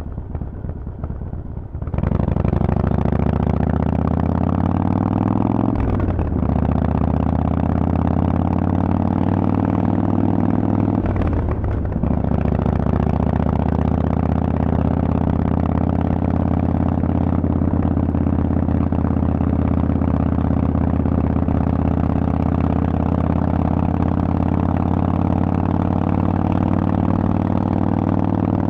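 Harley-Davidson Sportster Forty-Eight 1200XL's 1200 cc V-twin running through loud Vance & Hines exhaust pipes. After about two seconds running low, the throttle opens and the engine pulls up through the gears, with a gear change about six seconds in and another about twelve seconds in. It then holds a steady cruise, the revs creeping up slowly.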